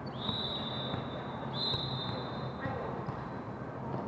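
Volleyball referee's whistle blown twice, two steady high-pitched blasts of about a second each, over the echoing hum of a gym.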